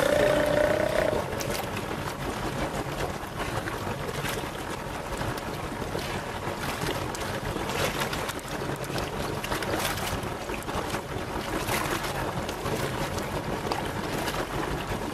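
A Steller sea lion gives a low growling roar that ends about a second in. After it comes a steady rush of wind and water.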